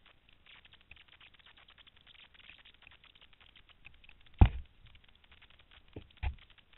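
Faint, close crackling and clicking, with one sharp loud knock about four and a half seconds in and two softer knocks near the end.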